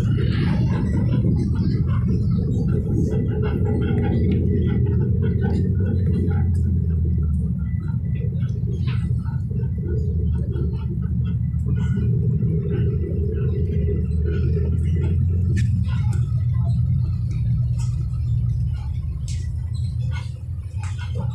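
Steady low rumble of a city bus under way, engine and road noise heard from inside the passenger cabin, with scattered light rattles and clicks.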